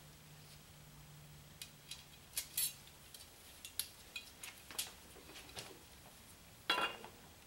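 Light metallic clinks and taps of small steel parts handled in gloved hands and fitted against a cast-iron tractor housing, irregular and a few seconds apart, with one louder, briefly ringing clink near the end.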